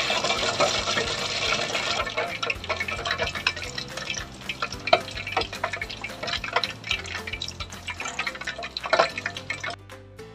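Egg-coated chicken pieces deep-frying in hot oil, a steady sizzle with frequent sharp crackles and pops. The frying sound cuts off near the end, leaving soft background music.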